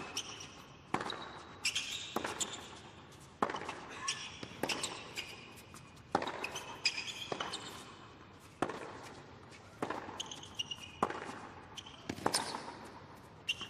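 Tennis rally on a hard court: sharp pops of rackets striking the ball, alternating louder and softer every second or so, mixed with ball bounces and short high squeaks of tennis shoes on the court.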